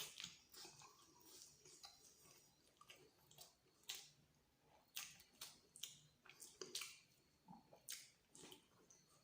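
Close-miked mouth sounds of a person eating egg masala with luchi: faint chewing with irregular wet smacks and clicks.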